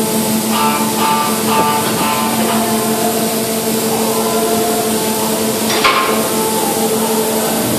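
Tunnel boring machine's segment erector and its machinery running with a steady hum. About a second in come about four short high tones in a row, and near six seconds a single metallic clank as the concrete lining segment is set into the ring.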